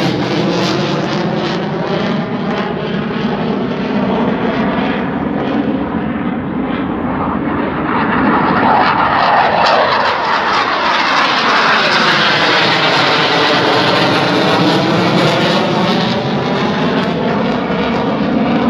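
Aircraft flying low overhead, a loud, steady engine noise with a sweeping whoosh that swells to its loudest around the middle as it passes.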